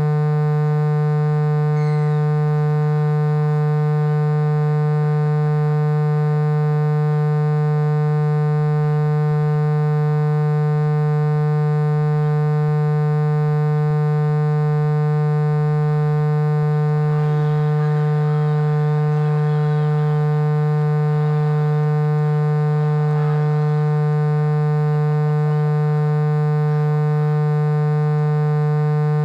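Loud, steady electrical hum on the recording, a low buzz with many overtones that never changes in level. Faint voices rise over it for several seconds past the middle.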